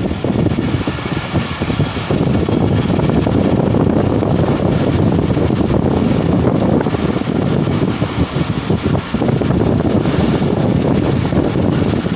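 The 45Up Pakistan Express passenger train running, heard from on board as a steady, loud rumble.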